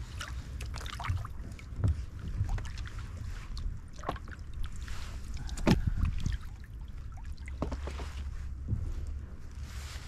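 Kayak paddle dipping and pulling through calm water beside a plastic kayak, with small splashes, drips and a few sharp knocks at irregular moments.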